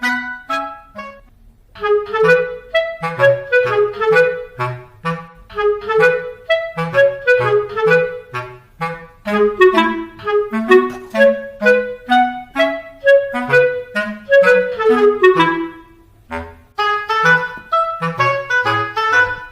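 Instrumental music: a melody of quick, short notes over a bass line, pausing briefly about a second and a half in and again near sixteen seconds.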